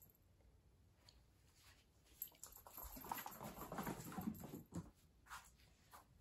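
Faint, quick pattering and scuffling of cats' paws as they run across a hard laminate floor, densest in the middle of the stretch.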